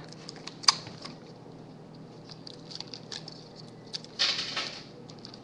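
Small clicks and taps of paper and straws being handled on a table, with one sharper click under a second in and a brief scratchy rustle a little after four seconds in.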